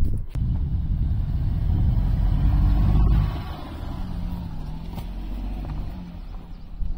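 Car driving off along an unpaved off-road track. A heavy low rumble of engine and tyres for about three seconds, then a quieter engine hum with its pitch rising and falling.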